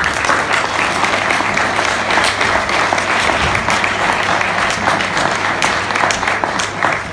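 Audience applauding, a dense steady clapping that begins to die down near the end.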